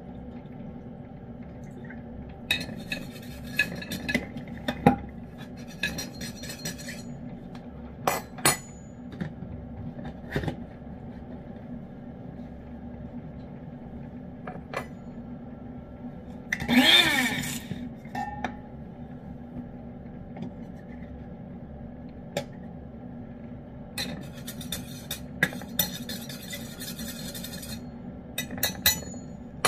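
A spoon clinking and scraping against dishes, in scattered taps and a few short spells of stirring, over a steady low hum. About halfway through, a louder sound about a second long whose pitch rises and falls.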